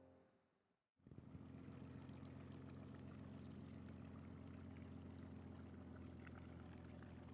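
Held musical notes fade out to a moment of dead silence. About a second in, a faint, steady low rumbling drone with a rushing hiss starts and holds.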